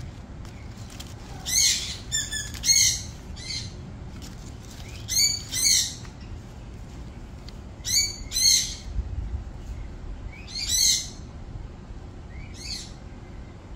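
A kitten hissing again and again in short, sharp bursts, often in pairs, as it is prodded under a pile of dry leaves.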